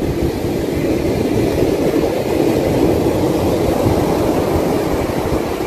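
Steady rumbling roar of breaking beach surf mixed with wind buffeting the phone's microphone.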